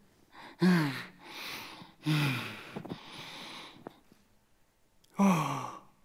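A man's wordless vocal sounds: three short voiced exclamations, each sliding down in pitch, with longer breathy exhalations after the first two.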